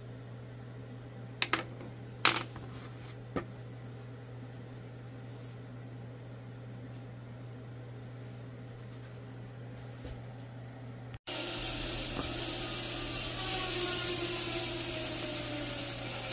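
Small wooden pieces and a felt marker handled on a plywood board: a few sharp taps and clicks in the first few seconds over a steady low hum. About eleven seconds in the sound changes abruptly to a louder, steady hiss with faint tones that slowly fall in pitch.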